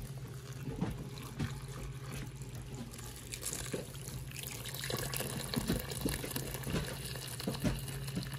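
Water pouring in a stream into a pressure cooker pot full of stuffed grape leaves and cabbage rolls, splashing on the food as the pot fills; the splashing grows a little louder about three seconds in. A steady low hum runs underneath.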